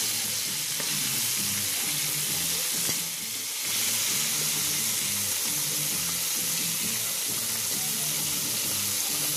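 Seasoned chicken pieces frying in hot oil in a pot, a steady sizzle that briefly drops about three seconds in, while the pieces are turned with a fork and spatula.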